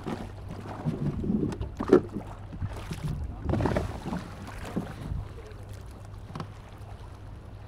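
Water sloshing and splashing as a small wooden rowboat is pushed through shallow water by a man wading beside it, with a sharp knock about two seconds in. The splashing is busiest in the first five seconds, then quieter.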